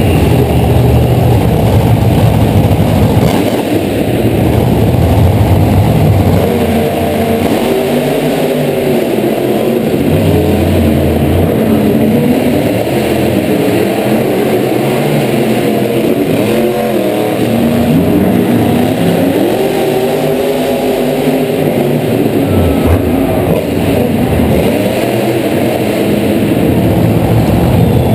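Monster truck engines revving hard, their pitch rising and falling again and again as the trucks race; the supercharged big-block V8s are loud.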